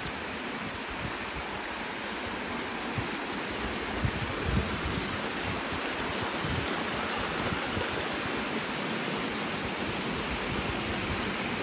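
Shallow creek water running over rock ledges in small cascades: a steady rushing. A few low bumps of wind on the microphone come about four seconds in.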